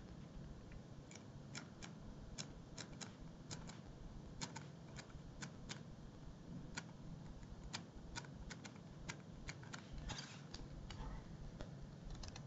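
Pen writing on paper: faint, irregular short taps and scratches, with a couple of longer scratching strokes about ten seconds in.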